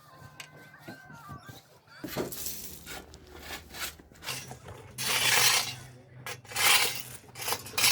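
Irregular rough scraping and rubbing strokes begin about two seconds in; the loudest comes around five seconds in, over a low steady hum.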